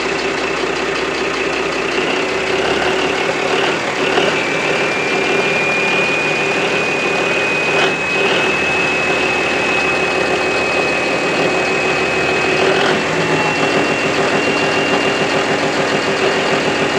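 Mitsubishi S6R2-MPTK six-cylinder marine diesel engine running steadily on its test run after overhaul. A high whine rides over the engine noise and rises a little in pitch about four seconds in and again near the end, with a single sharp tap about halfway through.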